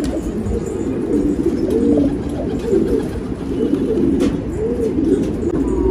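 Domestic pigeons cooing: low, overlapping, wavering coos running on without a break.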